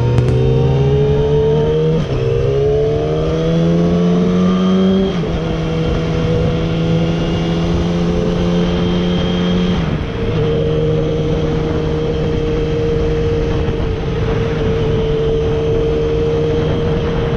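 Yamaha R6's inline-four engine accelerating through the gears: its pitch climbs and drops at upshifts about two, five and ten seconds in, then holds steady at a constant cruising speed.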